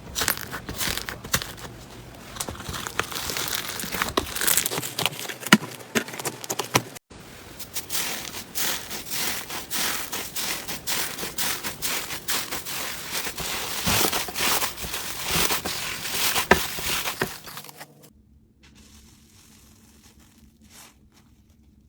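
Slime being squeezed and worked by hand, giving a dense run of crackling, popping clicks, with a brief break about seven seconds in. The sound drops to faint scattered clicks about eighteen seconds in.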